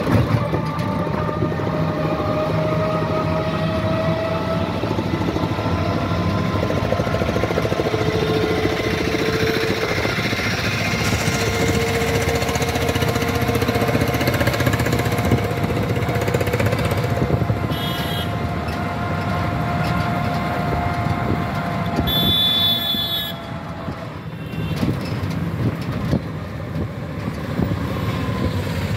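Street traffic heard from a moving vehicle: steady engine and road noise with a droning whine that drifts slowly in pitch. Two brief high-pitched tones sound past the middle.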